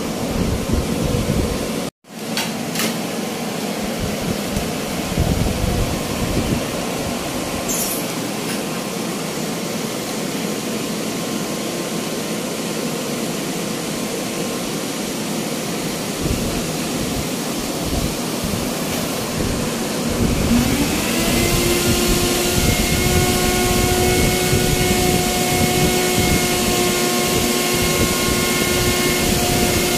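Industrial blower (air mover) running with a steady rush of air. About twenty seconds in, a motor spins up with a whine that rises in pitch and then holds steady over the rush. The sound cuts out for an instant about two seconds in.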